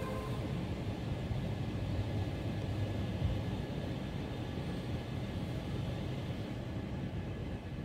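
Steady low rumble of background noise, with a fainter hiss above it.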